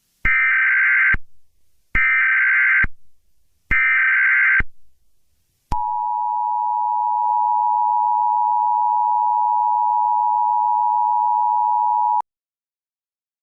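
Emergency Alert System opening: three short bursts of the SAME digital data header, each just under a second long and about a second apart. Then the EAS two-tone attention signal sounds as one steady tone for about six and a half seconds and cuts off suddenly.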